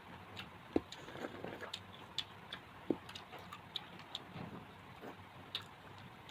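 Eating sounds: scattered small clicks and taps at an uneven pace, with two sharper knocks, one about a second in and one near three seconds.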